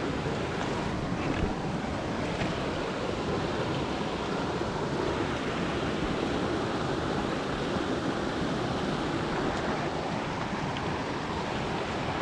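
Steady rushing noise with no distinct engine tone.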